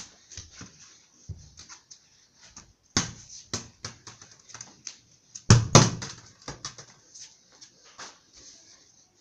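Small plastic football being kicked and bouncing on a concrete floor, with a child's footsteps: a run of short knocks and slaps, the loudest a heavy thump about halfway through.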